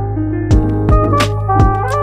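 Background instrumental music: a melody over a steady bass, with drum hits coming in about half a second in.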